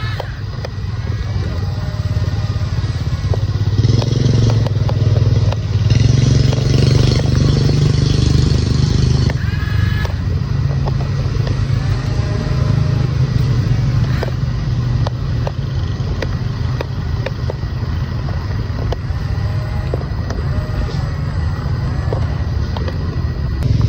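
Remote-control toy excavator's electric motors whirring steadily as it works, with scraping and clatter of sand; the motor sound grows louder and busier from about four seconds in to about nine seconds in.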